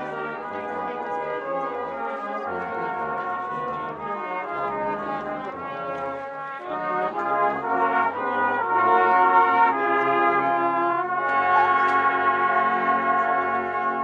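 Brass instruments playing music in held chords, growing louder about halfway through.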